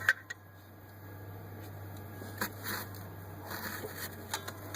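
A few faint clicks and short scrapes from a ratchet and socket on the crankshaft pulley bolt as a 4.0L V6 engine is turned over by hand. They come at irregular moments over a steady low hum.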